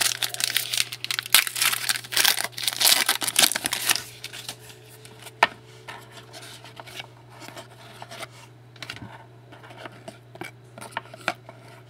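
Trading cards and their packaging being handled: about four seconds of dense crinkling, tearing-like rustle, then only occasional light clicks and soft slides of cards. A steady low hum runs underneath.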